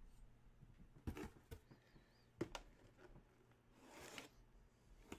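Near silence, with a few faint taps about a second in and two and a half seconds in, and a brief soft rustle around four seconds in as a cardboard box is handled.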